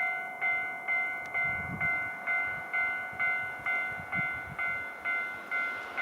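Japanese level-crossing warning bell ringing, an even electronic ding a little over twice a second. It is signalling an approaching train.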